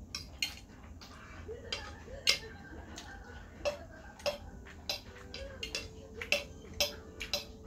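Metal fork clinking and scraping against a ceramic plate while eating: irregular sharp clicks, the loudest about two seconds in.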